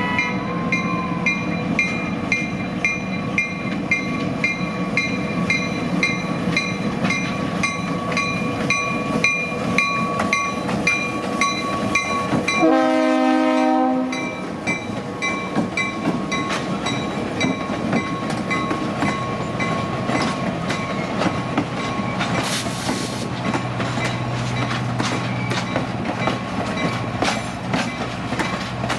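Passenger train departing: the locomotive bell rings about twice a second, then the horn gives one short blast about halfway through. After that the wheels click steadily over the rail joints as the cars roll past.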